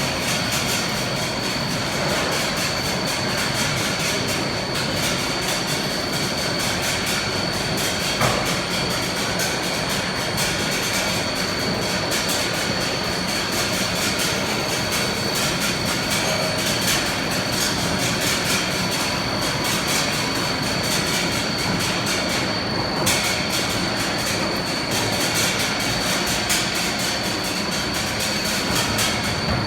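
Six-block pulley wire drawing machine running, drawing wire down from 5.5 mm to 2.5 mm: a steady mechanical din with a constant high whine and a couple of sharp clicks.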